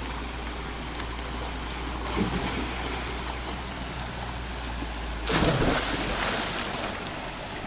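Steady rushing of a small river cascade pouring over rocks into a pool. A louder burst of noise comes a little over five seconds in, lasting about a second.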